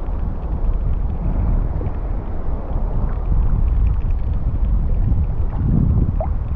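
Steady low rumble of wind buffeting the microphone over shallow sea water, with a short rising squeak about six seconds in.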